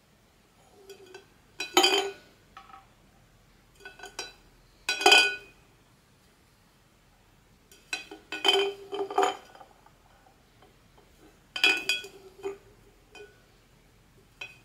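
Small hard plastic toy pieces clinking and rattling together as they are handled, in four short bursts a few seconds apart, each with a brief ringing tone.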